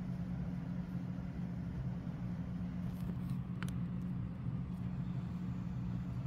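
A steady low electrical hum, with a faint click about halfway through.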